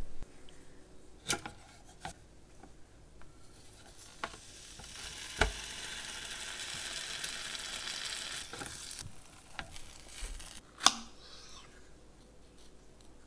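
A jam sandwich sizzling in a hot flip waffle maker, the sugar in it burning; the sizzle sets in with a thump and cuts off suddenly after about four seconds. A few knocks and clicks of knife and utensils come before and after, the sharpest near the end.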